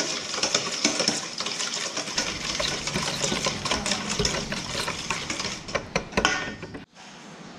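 A utensil beating melted butter, sugar, salt and an egg together in a mixing bowl: fast, busy clicking and scraping against the bowl that stops abruptly near the end.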